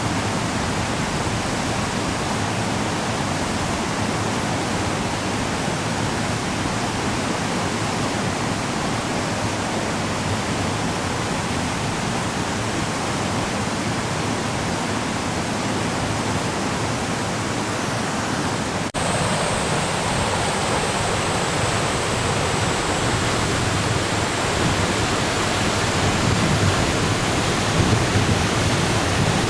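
Flood-swollen Shimanto River rushing past in a steady roar of fast, heavy water, swollen by the typhoon's rain. There is a momentary break about two-thirds of the way through, after which it is a little louder.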